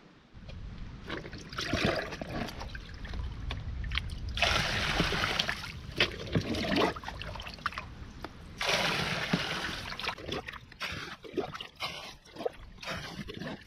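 Water splashing and trickling in irregular bursts, with the loudest stretches about four and nine seconds in.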